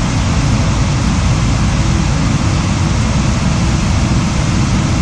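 Rocky river rushing over a small cascade close by: a loud, steady, even rush of water.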